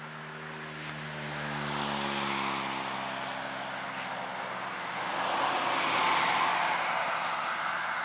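A passing motor: a low pitched hum that fades over the first few seconds, then a rushing noise that swells to its loudest about six seconds in.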